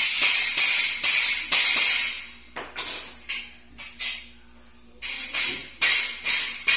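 A hammer striking the steel frame of a dish drainage rack, about two sharp ringing metallic strikes a second with a jingle from the wire baskets. The strikes break off for under a second midway, then resume.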